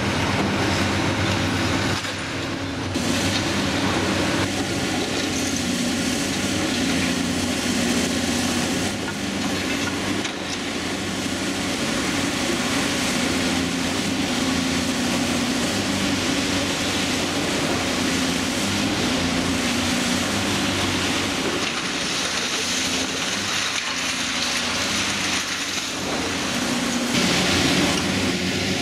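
Diesel engines of demolition excavators running steadily under load, mixed with the grinding and crunching of hydraulic demolition jaws breaking up reinforced concrete.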